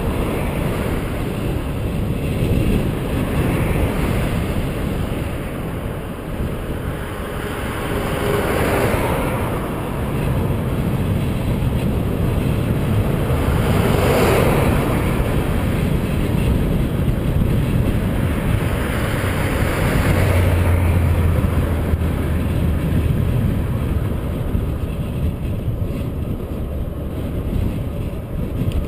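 Wind rumbling over the microphone of a camera on a moving bicycle, with traffic noise from cars on the highway. A car passes with a swell of tyre and engine noise about nine seconds in, and another about fourteen seconds in.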